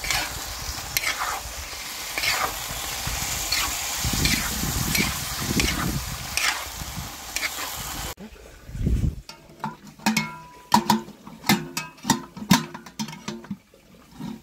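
Chicken pieces sizzling in a hot iron wok while a metal spatula scrapes and turns them, a scrape about once a second. About eight seconds in the sizzle cuts off abruptly, and irregular clicks and knocks follow.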